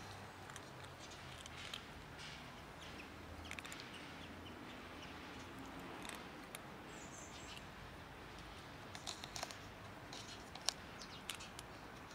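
Two cats eating dry kibble from a plastic tub: scattered faint crunches and clicks, with a few sharper ones near the end. A bird chirps briefly about seven seconds in.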